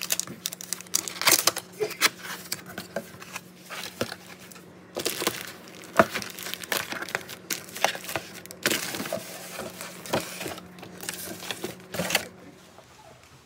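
Cardboard shipping box being opened by hand and the plastic wrap inside crinkling as it is handled and pulled, with scattered rustles and scrapes and one sharp click about six seconds in.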